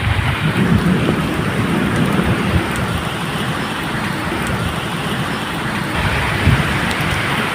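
Medium rain falling steadily, with the low, uneven rumble of distant thunder underneath that swells about a second in and again near the end.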